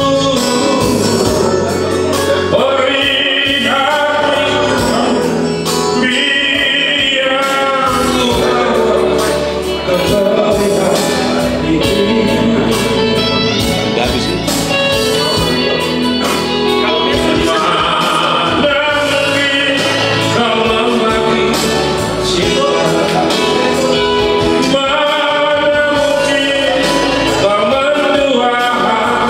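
A man singing an Indonesian song into a handheld microphone, amplified through a PA speaker, over instrumental accompaniment, holding some notes long.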